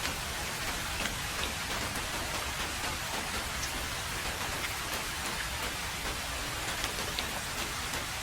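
Heavy rain falling steadily on a road: a constant hiss with occasional individual drops ticking through it.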